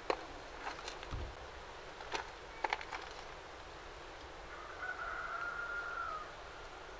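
A few sharp clicks of walnut pieces and a needle against an aluminium tray as walnuts are picked and threaded onto a string. Around the fifth second a bird calls once, a single held note lasting about a second and a half.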